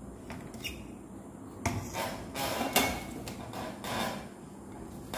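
Tools and a circuit board being handled and set down on a glass-topped workbench: a couple of light clicks, then a cluster of clinks and rattles between about two and four seconds in.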